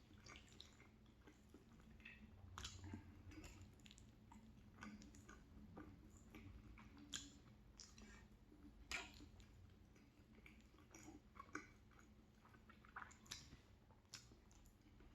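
Faint, close-miked chewing of spicy macaroni and cheese: soft wet mouth sounds with many short, sharp clicks scattered throughout.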